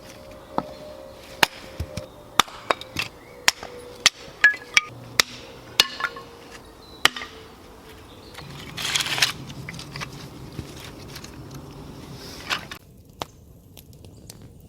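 Irregular sharp knocks and cracks of small pieces of ash firewood being split and handled, about a dozen in the first seven seconds. A short rustle follows about nine seconds in.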